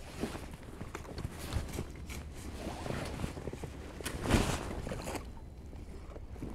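Small boat drifting at sea: water against the hull with scattered light knocks and clicks, and a louder rush about four seconds in.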